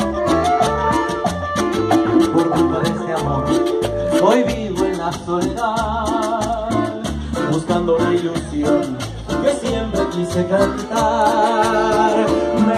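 Live son cubano band playing an instrumental passage: a flute melody over acoustic guitar, keyboard, congas and cajón, with a steady dance rhythm.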